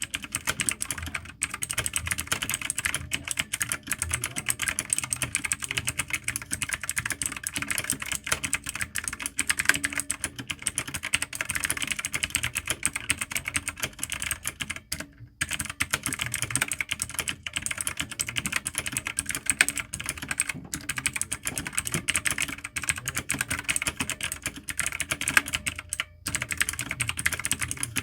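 Fast typing on a mechanical keyboard with Otemu blue clicky switches, a dense stream of sharp clicks with brief pauses about halfway and near the end.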